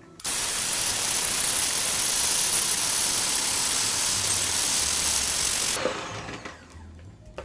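Electric mixer running steadily at speed, whipping instant coffee, sugar and hot water in a bowl into a smooth, creamy paste; it starts suddenly just after the start and cuts off abruptly near the end.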